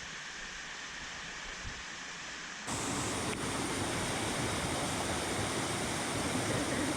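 Steady rush of a waterfall, an even hiss of falling water that steps up suddenly louder and brighter a little under three seconds in.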